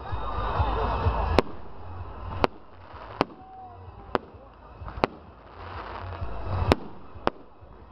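Aerial firework shells bursting, about seven sharp bangs at roughly one-second intervals.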